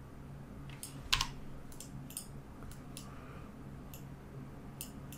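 Scattered clicks from a computer keyboard and mouse: about six separate clicks, the loudest about a second in, over a faint steady low hum.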